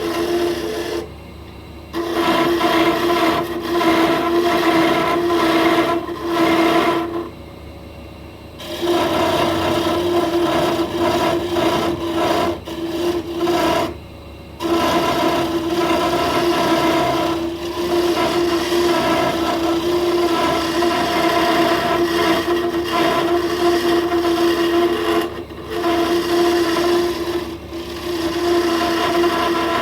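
Wood lathe spinning a plum-wood pen blank while a tool scrapes against the turning wood, a steady hum with a rasping edge, dropping away briefly several times when the tool comes off the work.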